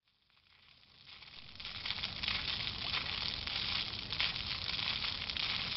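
Fountain water splashing into a pond: a steady hiss with fine crackle that fades in over the first two seconds after a moment of silence.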